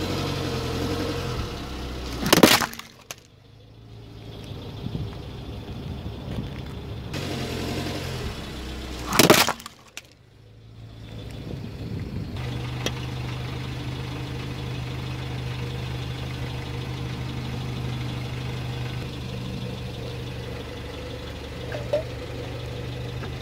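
A car tyre crushing a plastic basket holding a water balloon: a sharp crack of breaking plastic and the balloon bursting, heard twice, with the car's engine running low and steady underneath.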